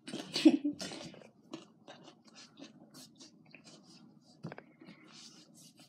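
Soft crunching and clicking of a child chewing tater tots, loudest about half a second in. About four and a half seconds in, a brief squeak from her chair.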